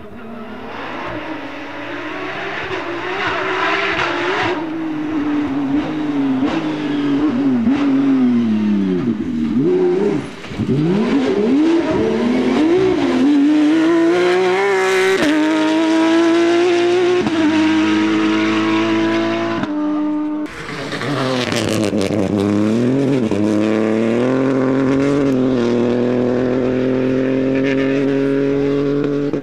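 Rally car engine driven hard on a stage: revs drop and waver as it slows, then climb and step up through the gears. It cuts off suddenly about two-thirds through, then revs dip and rise again.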